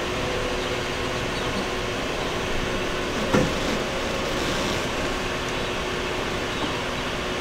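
Steady mechanical hum with a whirring noise and a couple of constant tones, with one brief short sound about three and a half seconds in.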